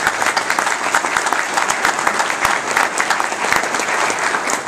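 Audience applauding: many hands clapping steadily in a room.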